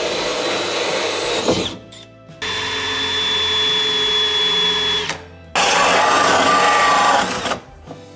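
Cordless drill spinning a hole saw through the back panel of a sink-base cabinet, cutting a hole for a pipe. The drill runs in three bursts of about two seconds each with short pauses between, its motor whine steady within each run and winding down at the end of the first.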